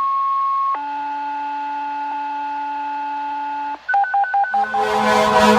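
Fire-department dispatch tone-out: a steady high tone for about a second, then a lower tone held for about three seconds, then a quick run of beeps alternating between two pitches. Near the end a loud, steady, low horn blast starts.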